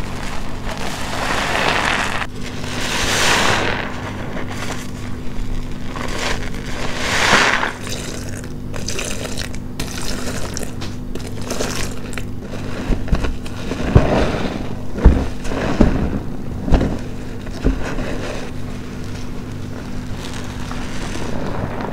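A soapy, foam-soaked sponge squeezed over and over, each squeeze a wet, noisy swell, with a few sharp low thumps in the second half.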